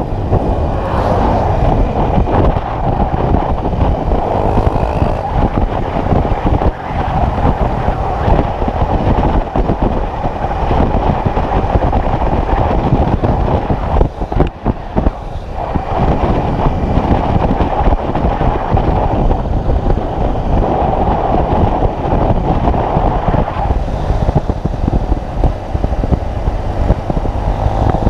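Single-cylinder four-stroke trail motorcycle engine running while riding off-road, the engine note rough and fluctuating with the throttle, mixed with wind noise on the microphone.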